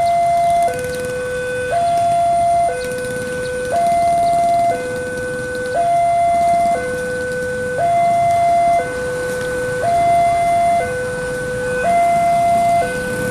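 Two-tone electronic warning alarm, switching between a higher and a lower tone about once a second, typical of a railway level-crossing alarm sounding as a train approaches. Under it, the low rumble of the approaching diesel locomotive.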